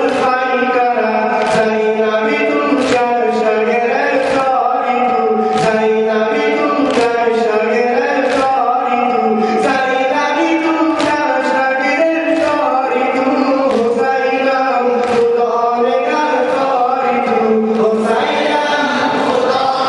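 Shia noha mourning lament sung by male voices, a lead reciter with the gathered men joining in, over a steady beat of hands slapping chests (sineh zani). The slaps land at an even pace, and the voices swell near the end.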